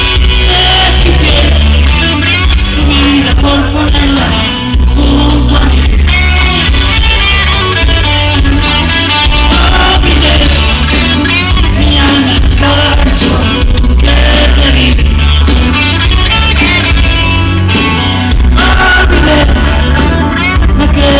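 Live rock band playing loudly, with electric guitar over bass and drums, heard from within the audience.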